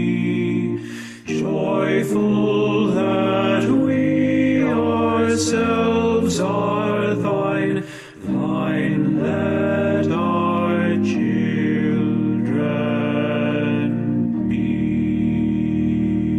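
A slow English hymn sung over held accompanying chords, with two short breaks between lines. From about two-thirds of the way in, a long sustained chord holds on its own.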